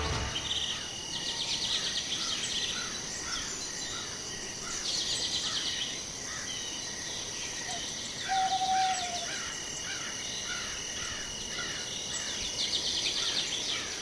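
Several birds singing outdoors in spring woods. A dry, rapid trill about a second long repeats three times, over a steady high tone, a regular run of short chirps and one brief low whistle just past the middle.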